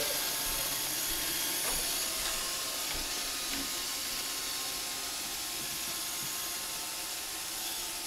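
An iRobot Roomba robotic vacuum running on a hardwood floor: a steady hiss from its vacuum fan and brushes, with a faint hum, getting slightly quieter over the seconds.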